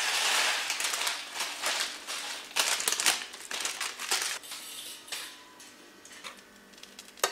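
Rolled oats poured from a crinkling plastic bag into a steel saucepan of milk: a rustling hiss, then a few sharp clicks and taps about two and a half to three seconds in, trailing off into quieter handling sounds.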